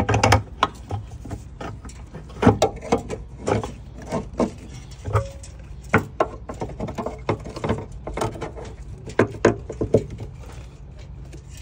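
Irregular clicks and knocks of a semi-truck's trailer air-hose gladhand couplings being handled and stowed in their holders, over a steady low hum.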